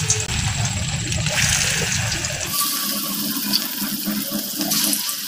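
Battered chicken pakora pieces deep-frying in hot oil in a steel kadai, sizzling steadily. About halfway through, the low rumble drops away and the sizzle turns brighter and hissier.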